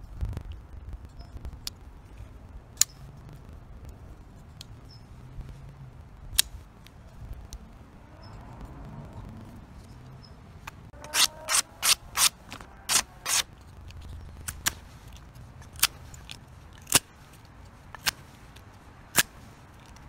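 Ball-bearing flipper folding knife being flicked open and shut: sharp metallic clicks as the blade snaps out and locks and as it is closed. A few single clicks well apart, then a quick run of about seven about halfway through, then single clicks roughly once a second.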